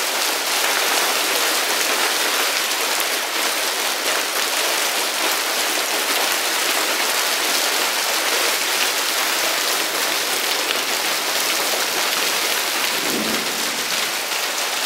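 Hailstorm: large hailstones falling hard and without letup, a dense, steady hiss of ice striking the surfaces around.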